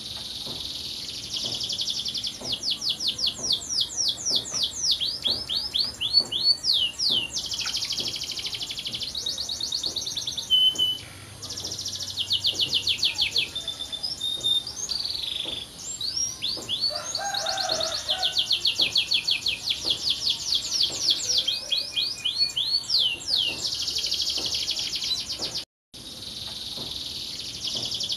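Canary singing a long, continuous song of fast trills: rapid runs of repeated high notes and sweeping rolls. The song breaks off for a moment near the end, then resumes.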